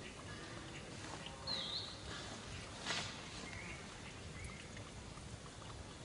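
A short, high-pitched animal call that dips and then rises, about a second and a half in, followed by two fainter short calls. A sharp knock comes about three seconds in, over a steady background hiss.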